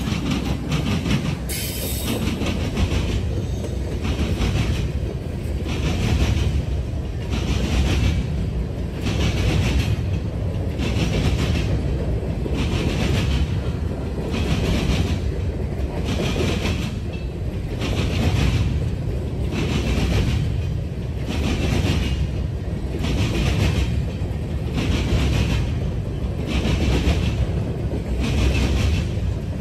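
Freight train's covered hopper cars rolling past, steel wheels clattering on the rails in an even rhythm of about one beat a second over a steady rumble.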